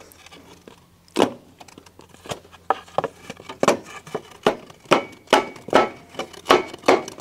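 Repeated knocks on a wooden plank wedged in a car's engine bay against the exhaust headers: a single knock about a second in, then a steady run of knocks, about two or three a second.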